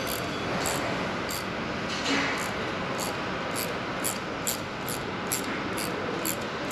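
Ratchet wrench clicking in short, even bursts, about two a second, as the mechanic swings it back and forth to run in the bolts of a handlebar knuckle-guard bracket, over a steady low hiss.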